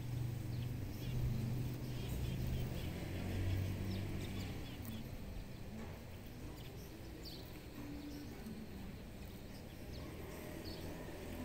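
Outdoor ambience: a steady low hum, louder in the first few seconds, with scattered faint high chirps from birds.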